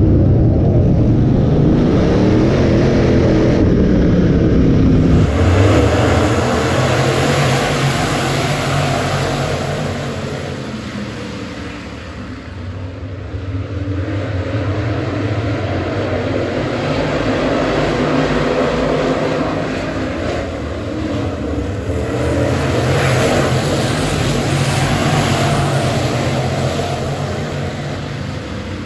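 A dirt late model race car's V8 engine running, heard from inside the cockpit. About five seconds in, it gives way to a field of dirt late models racing around a dirt oval, their engine noise swelling and fading as the pack circles the track.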